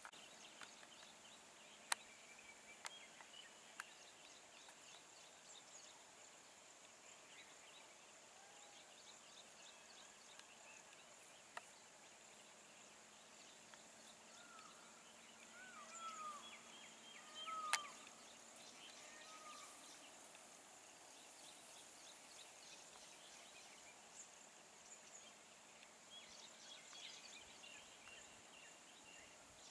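Faint rural ambience: a steady high insect buzz with scattered small chirps, a cluster of short whistled bird calls around the middle, and a few sharp clicks.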